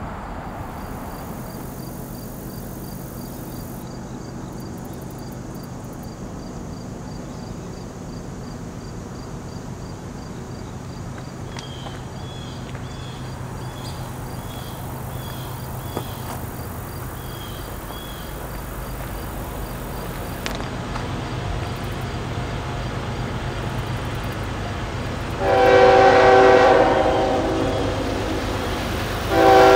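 Horn of an approaching CSX freight locomotive sounding a long blast about four-fifths of the way in, then a second blast starting near the end. Before the horn, a steady low rumble from the distant train slowly grows louder.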